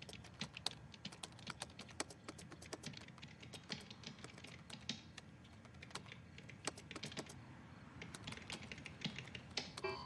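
Fast, irregular typing on a computer keyboard, many key clicks, with a brief electronic tone right at the end.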